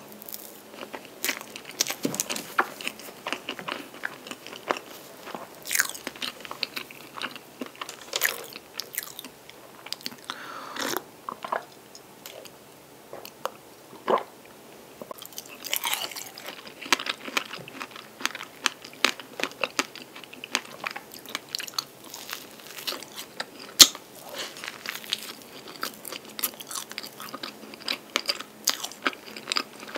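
Close-miked eating sounds of a soft strawberry cream cake: chewing with many short, wet mouth clicks throughout. Around the middle the clicks thin out for a few seconds while milk is drunk from a glass.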